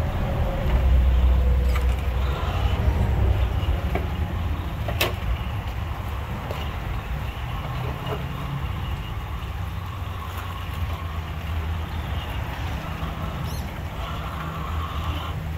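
Axial SCX10 II radio-controlled rock crawler driving over rocks: a steady low running sound from its motor and drivetrain, with a few sharp knocks, the clearest about five seconds in.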